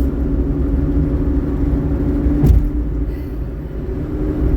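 Vehicle engine and road rumble heard from inside a moving car or truck, steady with a low hum. A single sharp knock about halfway through.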